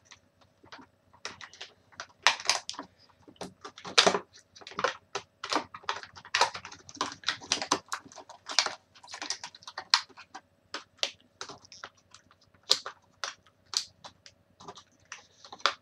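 Irregular clicks, taps and crinkles of an action figure's packaging being handled, as the figure is worked free of the ties holding it in its box.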